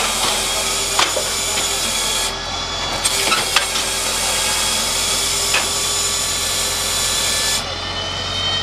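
Firewood processor's chainsaw bar cutting through logs over the steady running of the machine's engine. The sawing breaks off for a moment about two seconds in, resumes, and stops near the end, leaving the engine running. A few sharp knocks come as sawn rounds drop into the splitting trough.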